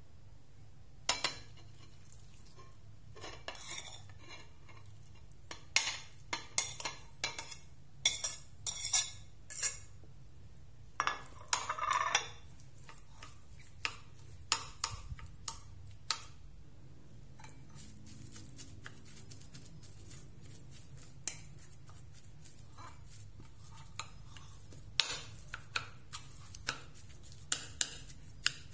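Utensils clinking, tapping and scraping against a ceramic bowl as food is stirred and mixed, in irregular sharp clicks that come thickest in the first half and thin out later. A faint steady low hum runs underneath.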